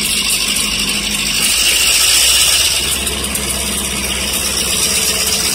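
Union Pacific diesel locomotives running steadily as they move slowly along the track, a constant low engine drone with a hiss above it, a little louder about two seconds in.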